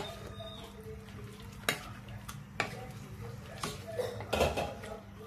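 A wooden spatula stirs prawns and pineapple chunks in a cooking pot, knocking and scraping against the side about five times, over a steady low hum.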